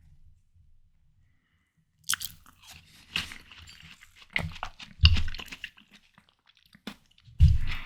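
Close-miked biting and chewing of juicy, ripe watermelon: crisp, wet crunches begin about two seconds in and go on through the rest, with a few heavier bites.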